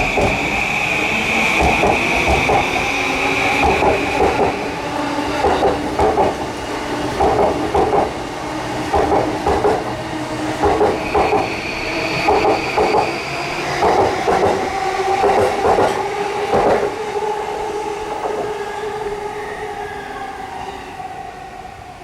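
Electric commuter train running through the station. Its wheels clatter rhythmically over rail joints and points, and a high steady squeal comes at the start and again about eleven seconds in. The train fades away near the end.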